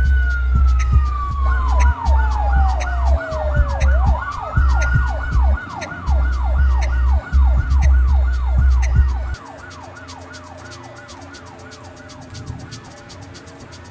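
Electronic siren sound: one slow wail falling in pitch, then fast yelping sweeps at about three a second, over a heavy booming bass beat. The bass drops out about nine seconds in and the yelp carries on more quietly.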